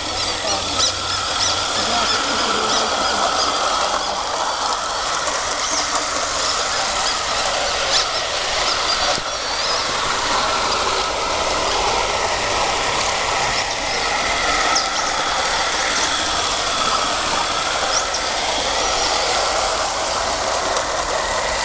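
Small 16mm-scale live-steam garden-railway locomotive running with a loaded goods train: a steady hiss with small clicks here and there.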